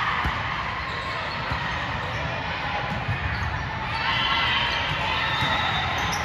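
Game crowd noise: many voices talking and calling over one another, with the thumps of a ball bouncing.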